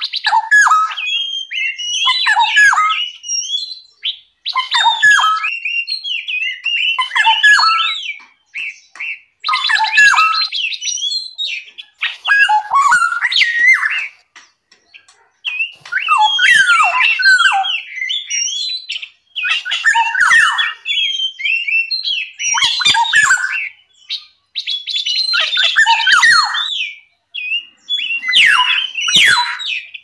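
Songbirds singing loud, varied phrases of quick whistles and chattering notes, a few seconds each with short pauses between, some phrases with harsh buzzy notes.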